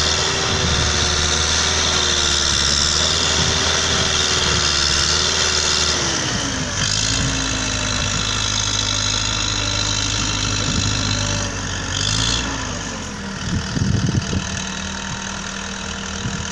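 Diesel engine of an Implanor Bell SC-800 sugarcane loader running, its pitch dropping about six seconds in as the revs fall, with a few knocks near the end.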